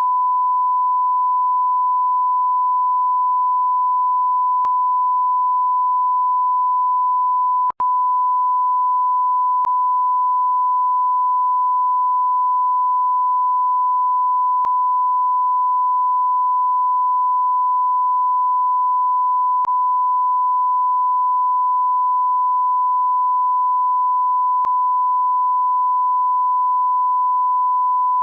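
Censor bleep: a single steady, high pure tone held on without change, cut by a very brief dropout about eight seconds in, with faint clicks every five seconds.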